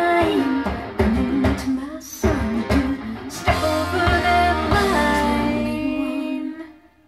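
A recorded song played from vinyl through Tannoy Precision 6.2 loudspeakers driven by an AMX Minima 6L6 tube amplifier: an instrumental passage led by guitar, ending in a held chord that fades out near the end.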